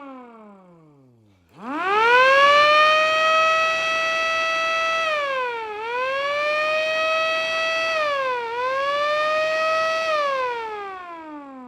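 MS-390 siren on its first test, sounding a single steady tone. It winds down to nothing, then winds back up quickly about a second and a half in to a steady high note. The note dips briefly in pitch twice and recovers, and near the end the siren winds down again.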